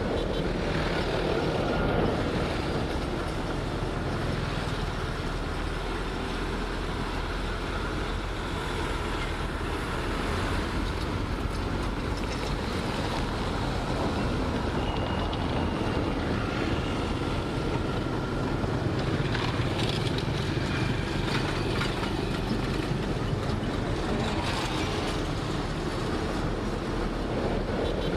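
Heavy diesel earthmoving machinery running steadily under load, with faint high squeals coming and going over the engine's low rumble.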